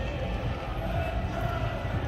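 A steady low rumble with a faint, even engine drone over it.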